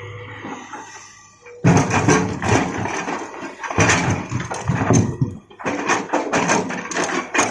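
Rock clattering and crashing against a Hitachi excavator's steel bucket as it digs and loads large boulders. The irregular crashes start about a second and a half in, after a quieter opening.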